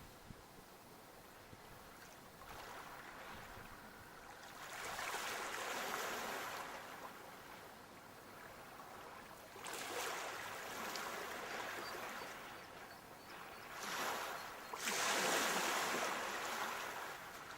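Sea waves breaking and washing up the shore, a rushing surge every few seconds, the loudest one near the end.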